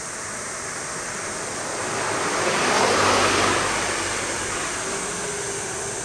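A road vehicle passing close by: a smooth swell of tyre and engine noise that builds about two seconds in, peaks around three seconds and fades away, over a steady background hiss.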